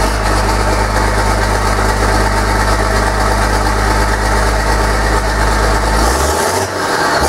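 Mercedes-Benz MB Trac 1300 Turbo's turbocharged six-cylinder diesel engine idling steadily. Its steady note breaks up and changes near the end as the engine speed shifts.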